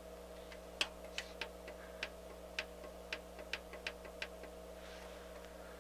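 Irregular clicking of a stereo receiver's front-panel controls, pressed or turned step by step while scrolling through its setup menu, a few clicks a second, over a steady low hum.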